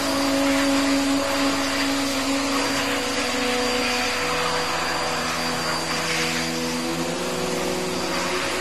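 High-velocity pet dryer blowing air through its hose onto a dog's thick double coat: a steady rush of air over a motor hum whose pitch shifts a few times.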